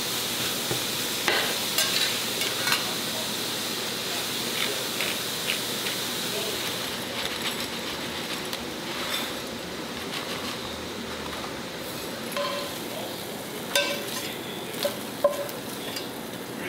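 Ground meat sizzling in a stainless steel skillet while a metal spatula stirs it, clicking against the pan. The sizzle thins out about halfway through, and near the end a cluster of sharp knocks comes as the meat is scraped out of the pan into a bowl.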